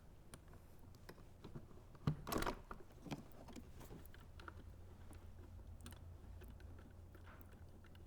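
Faint small clicks and taps of metal parts being handled as a carburetor and its gaskets are worked onto the mounting studs of an inverter generator, with a louder knock about two seconds in.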